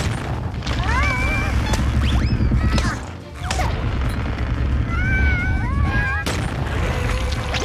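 Cartoon music with a heavy bass, under squeaky, chattering cartoon ant voices that glide up and down. Several crash and thud sound effects hit, about half a second in, around three seconds in, and again just after six seconds.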